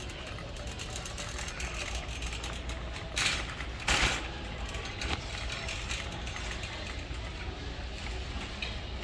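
Busy store ambience with a steady low hum and a continuous light clicking rattle, and two short louder hissing bursts about three and four seconds in.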